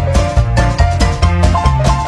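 Background music with a steady quick beat over a bass line.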